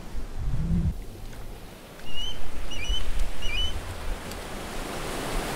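Seaside ambience of wind and waves, with a brief low hum about half a second in and a few short, high bird chirps starting about two seconds in.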